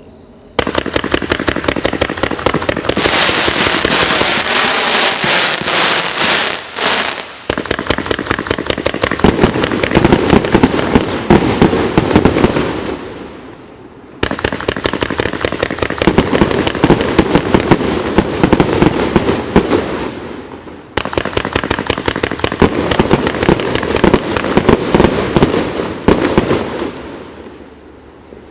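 100-shot fan-shaped firework cake firing a rapid barrage of shots and bursts. It comes in four waves, each starting abruptly about half a second in and tailing off before the next.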